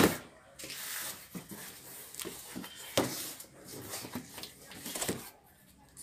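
A cardboard box set down with a thump on a wooden desk, then turned and shifted by hand: cardboard scraping and rustling on the desktop, with a couple of knocks.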